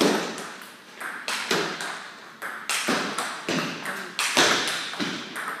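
Table tennis rally: the celluloid ball is struck by the rackets and bounces on the table in a string of sharp, irregular knocks about every half second, each echoing briefly off the sports hall. The loudest hit comes at the very start.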